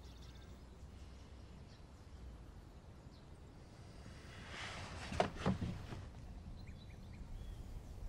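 Quiet outdoor ambience with a few faint bird chirps. A little past halfway, a brief rustling swell carries two sharp clicks half a second apart.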